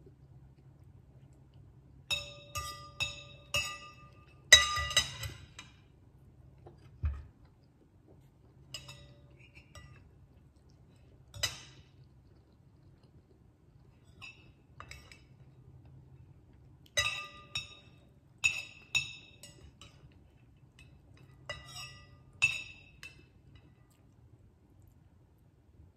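Metal fork and knife clinking and scraping against a ceramic bowl of noodles, in scattered clusters of short ringing strikes, the loudest about four and a half seconds in.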